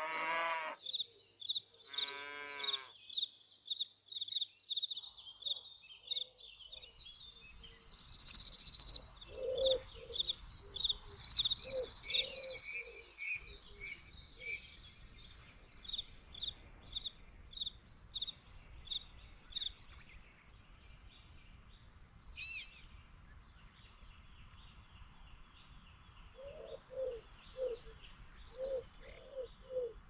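Small birds singing, with a steady run of high chirps and two louder, denser trills about eight and eleven seconds in. A pigeon coos in short repeated low notes near the middle and again near the end. Two short livestock calls open it, and a faint low rumble sits underneath from several seconds in.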